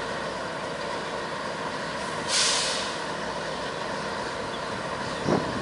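Canadian Pacific diesel freight locomotives running steadily as the train moves slowly through floodwater. A short hiss of air cuts in about two seconds in, and a single knock comes near the end.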